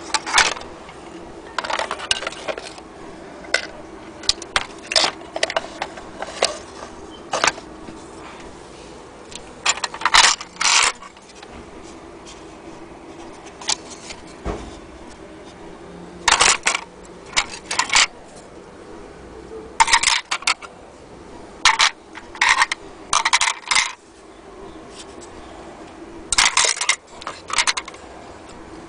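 Small metal and glass clock parts, such as mantle clock bezels, dials and front glasses, clinking and scraping together as they are handled, in short irregular clusters of sharp clinks every few seconds.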